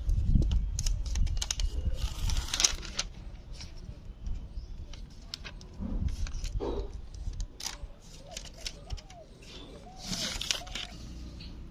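Irregular clicks and taps, like small objects being handled, over a low rumble that fades after the first few seconds. A few short chirps come near the end.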